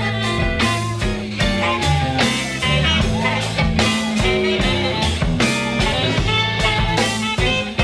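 Live rock band playing psychedelic rock: guitar over a moving bass line, with drums keeping a steady beat of about two hits a second.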